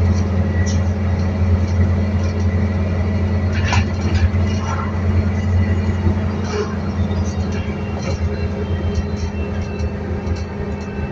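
A Volvo B7TL double-decker bus's diesel engine running with a steady low drone, heard from inside the bus as it travels, with occasional body rattles and knocks.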